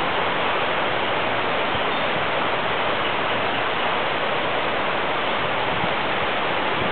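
Steady, even rushing noise with no separate events.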